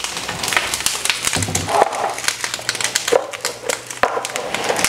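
Clicks and light knocks of a plastic food container and glass spice grinders being handled on a kitchen worktop, over a low steady hum that comes in about a second and a half in.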